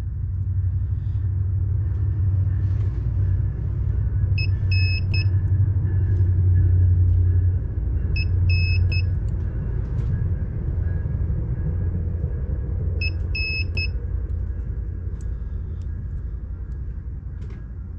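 A battery spot welder beeps in short runs of three quick high beeps, three times over, as its pens are held on the nickel tab of an 18650 cell, with a few faint clicks. Under it all runs a loud, steady low hum.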